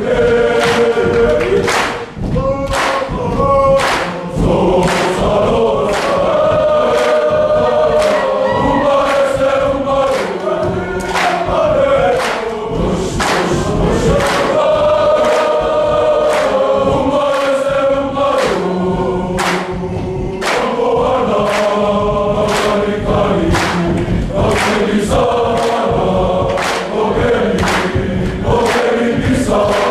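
A large group of students singing together in chorus, a hymn-like song with long held notes that move from one pitch to the next.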